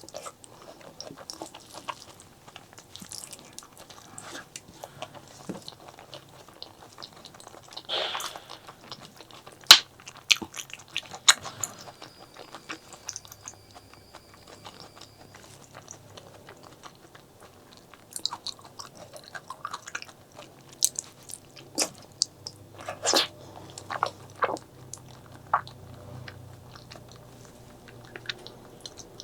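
Close-miked chewing and biting of spicy pork leg curry with rice, with irregular sharp crunches and clicks. The crunches are loudest about a third of the way in and again about three quarters through.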